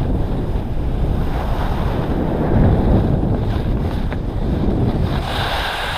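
Wind rushing over a handheld GoPro's microphone during a ski run down a groomed piste, mixed with the hiss of skis sliding on the snow: a steady, rumbling rush.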